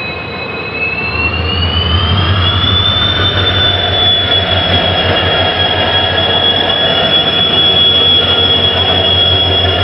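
Train running, with a low rumble under a steady high-pitched wheel squeal that rises slightly in pitch over the first few seconds and then holds.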